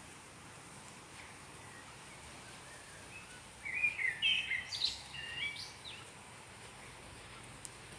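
A songbird sings a short run of quick, warbling chirps about halfway through, over a quiet, steady outdoor hiss.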